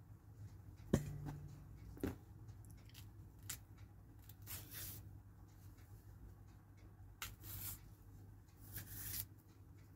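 Faint sounds of bananas being peeled by hand: a couple of sharp clicks about one and two seconds in, then several short rustling tears of banana peel, over a steady low hum.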